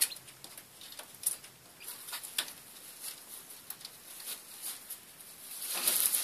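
Pet rats scrambling about a wire cage: scattered light clicks and scratches of claws on wire and plastic, with a louder rustling scramble near the end.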